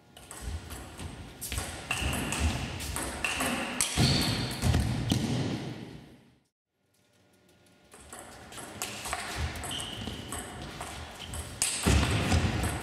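Table tennis rallies: the ball clicks in quick succession off the bats and the table, in two separate rallies with a brief silence between them.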